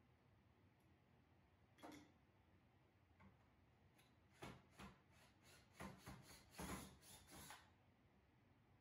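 Faint click about two seconds in, then a run of short bursts in the second half from a cordless drill-driver pulsed on and off.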